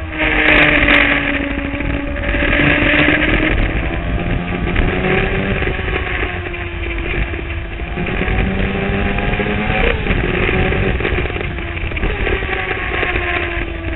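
Sport motorcycle engine under way, heard from a camera on the fuel tank. Its pitch falls and rises with the throttle, with a quick change in pitch about ten seconds in, over a steady rush of wind and road noise.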